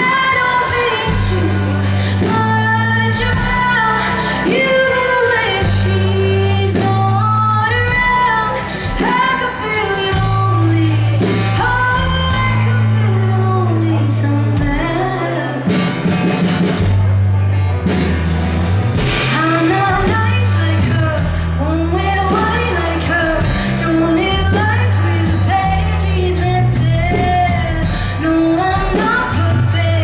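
Live band music: a woman singing lead over a strummed acoustic guitar and a bass guitar playing steady low notes.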